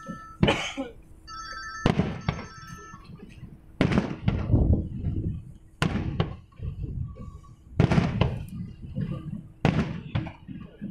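Aerial fireworks shells bursting overhead: about six sharp bangs, roughly one every two seconds, each trailing off in a low rumbling echo.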